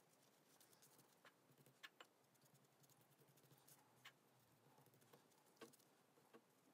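Near silence with a few faint, scattered clicks and light rustles as hands fold and roll a thin pastry wrapper on a stone countertop.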